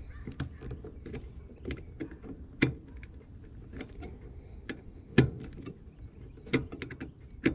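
Scattered small clicks and ticks of hand-tightened wire connections in a heat pump's control wiring being twisted snug, with a few sharper clicks spread through, the loudest about five seconds in.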